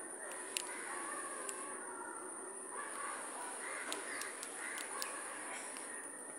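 Crows cawing faintly now and then, over a steady high hiss.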